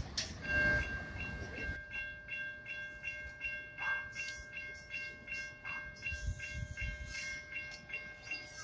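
Safetran Type 3 electronic crossing bells dinging rapidly, about three strikes a second over a steady ringing tone, warning that a train is approaching the crossing. A car passes during the first couple of seconds.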